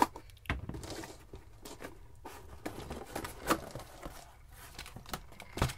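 Cardboard box being opened and the plastic-packed fishing lures inside handled: scattered light rustles, clicks and taps, with one sharper knock near the end.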